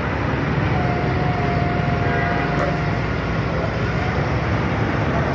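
Hitachi EX200-1 excavator's diesel engine running steadily, a deep, even rumble with a faint thin whine over it for a couple of seconds.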